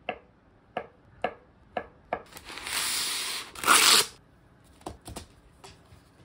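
A kitchen knife slicing through an avocado onto a wooden cutting board, five sharp taps about two a second. Then a long rustle as kraft cooking paper is pulled off its roll, and a loud short tear as the sheet is torn off against the box's cutting edge, followed by a few light taps.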